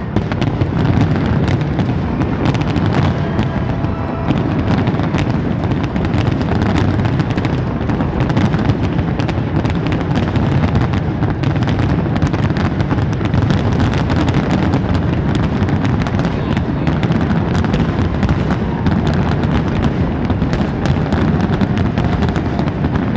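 Fireworks going off in a continuous barrage: dense, rapid crackling and popping over a steady low rumble, with no let-up.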